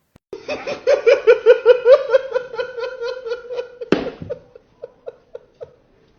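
A person laughing hard in a fast run of 'ha-ha-ha' bursts, about five a second, that tails off into a few separate gasps of laughter. A sharp knock sounds about four seconds in.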